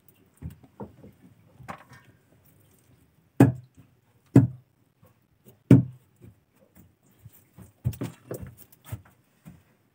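Irregular light taps and knocks, with three louder short hollow thumps about three and a half, four and a half and six seconds in.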